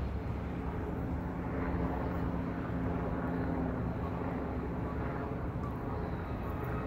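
A distant engine drones steadily, a low rumble with a faint steady hum that swells a little midway.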